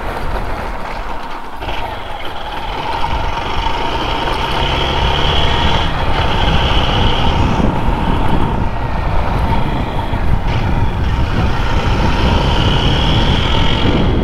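Motorcycle on the move: wind rushing over the helmet-mounted microphone mixed with engine and road noise, a steady rumble that gets louder about three seconds in.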